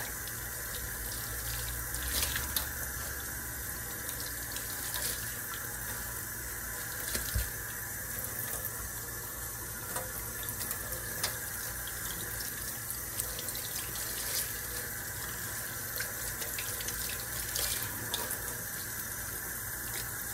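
Kitchen tap running steadily into a stainless-steel sink while a sponge and hand scrub the soapy basin, with scattered small knocks and rubs over the water.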